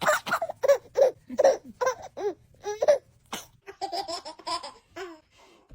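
A baby laughing in short high-pitched bursts, then a quicker run of giggles about four seconds in that stops a little after five seconds.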